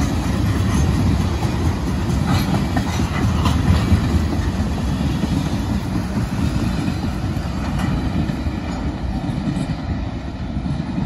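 Loaded ethanol tank cars of a freight train rolling past: a steady low rumble of steel wheels on the rails with some clickety-clack. It eases off near the end as the last car goes by.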